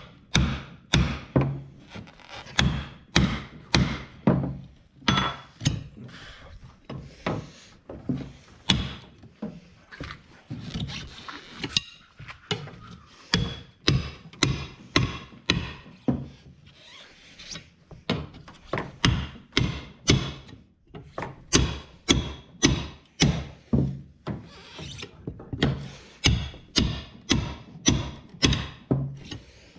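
Repeated hammer blows on a tyre lever, working a tractor tyre's bead off its steel rim. The blows are sharp and come a little over once a second, easing off briefly twice.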